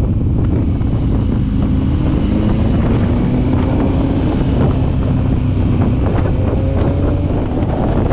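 Motorcycle engine running on the road under heavy wind buffeting on the microphone, the engine note easing as the bike slows for a bend and rising again near the end.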